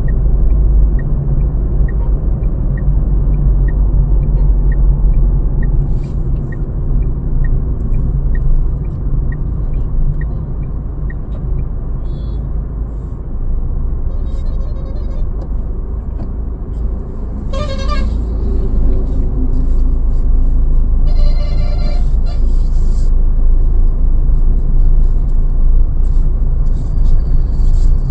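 Steady low road and engine rumble inside the cabin of a moving Tata Altroz, with a light regular ticking about twice a second for the first ten seconds or so. Just past the middle a short vehicle horn sounds, then a longer horn blast a few seconds later.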